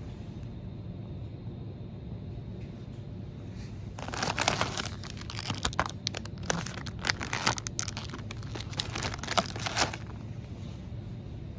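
Plastic biscuit packet crinkling as it is handled, in a run of crackles from about four seconds in until about ten seconds, over a steady low hum.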